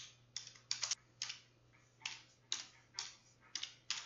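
Typing on a computer keyboard: single keystrokes at an uneven pace, about two a second, with a short pause a little past the first second.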